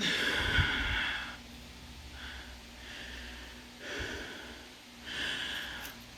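A person taking a series of hard, hissy breaths while trying to get rid of hiccups. The first breath is the longest and loudest, lasting about a second, and four shorter ones follow over the next few seconds.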